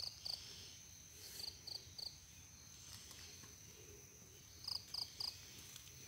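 Faint, steady, high-pitched drone of insects, with a few quick groups of short chirping calls.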